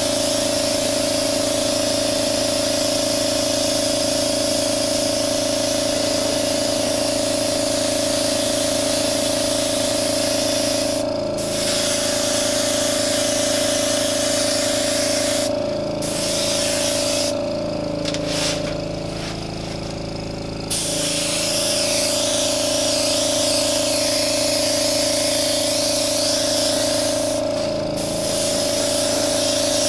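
Airbrush hissing as it sprays paint, over the steady hum of its air compressor. The spray stops four times, the longest gap about three seconds past the middle, and the hum shifts in pitch during that gap.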